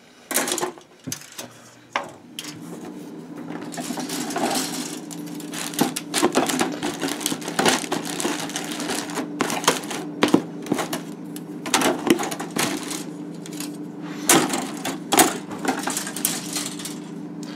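Hard plastic model-kit runners clattering and clicking against each other and the cardboard box as they are packed back in, with a steady low hum underneath from about two seconds in.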